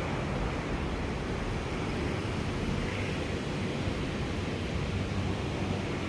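Steady rushing background noise with a low hum underneath, without clear bird calls.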